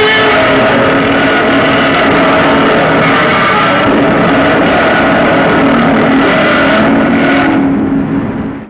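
Film sound effect: a loud, steady drone of several held tones over a rough noise, lasting about eight and a half seconds and cutting off abruptly.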